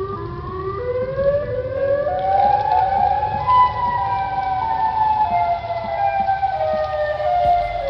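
Outdoor civil-defense warning siren wailing, several tones overlapping: the pitch climbs slowly for about three seconds, then slowly falls.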